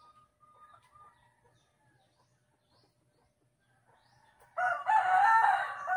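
A rooster crowing once, loud, beginning about four and a half seconds in after a quiet stretch.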